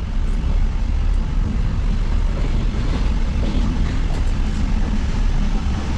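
Steady low rumble of a moving passenger train heard from inside the coach: wheels and running gear on the track.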